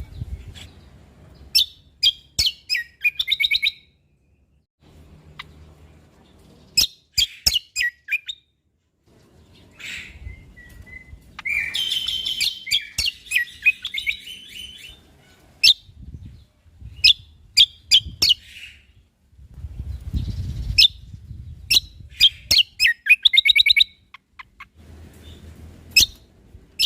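Cucak kombo (kecial kombok) singing: bursts of sharp, quick chirps and short rattling trills separated by pauses.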